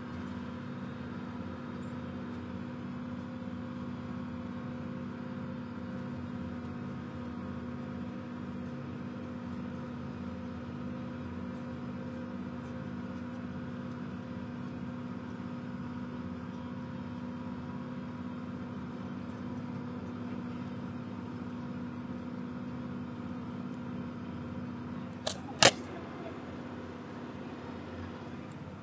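Massey Ferguson 6290 tractor running steadily under load, pulling a trailed Vicon disc mower through standing oats, heard from inside the cab as an even engine drone. Near the end come two sharp knocks, the second the loudest sound.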